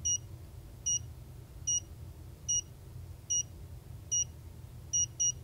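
The clock kit's board-mounted buzzer gives about eight short high beeps, roughly one every 0.8 seconds, then two in quick succession near the end. The beeps come as the buttons are pressed to step through the clock's setting menu.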